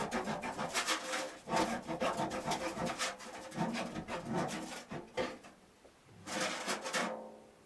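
A tin of canned crab being opened with a can opener: a run of rapid rasping, scraping clicks as the blade works around the lid, a short pause about five seconds in, then one last burst of scraping.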